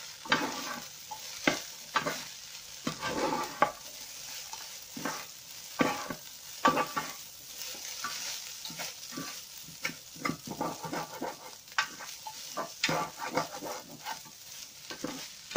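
Fried rice being stirred in a non-stick Teflon pan, sizzling in oil, with irregular scraping strokes about once or twice a second over a steady frying hiss.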